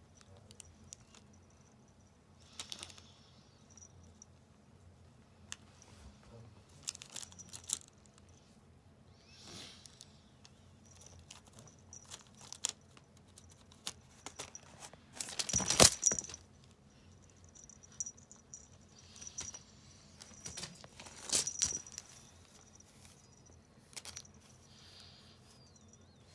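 Shiny pink feather wand cat toy rustling and scraping on a rug as a kitten bats and grabs at it, in short irregular bursts, the loudest about halfway through.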